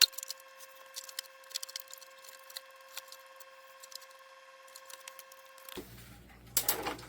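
Scattered small clicks and clinks of parts and tools being handled while a CRT television is taken apart, the loudest right at the start, over a faint steady hum; the deep end of the sound is cut away until near the end.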